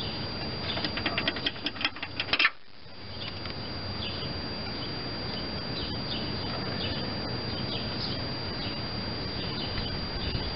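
A quick run of light clicks and rattles from hands working a brake hose fitting and its retaining clip on a 1993 Chevy S-10's front brake. It stops abruptly about two and a half seconds in, leaving steady outdoor background with faint bird chirps.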